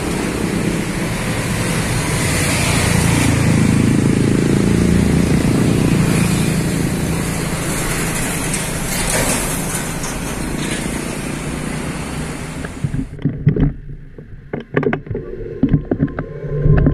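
Heavy diesel trucks running in slow traffic, a steady engine rumble with road noise. The sound cuts off abruptly about thirteen seconds in, leaving a few scattered knocks.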